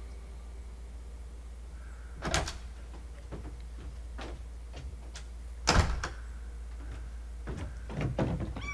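A house's front door being worked: a few separate knocks and clicks, the loudest about six seconds in, then a quick run of knocks like footsteps on the front steps near the end. A low steady hum lies under it.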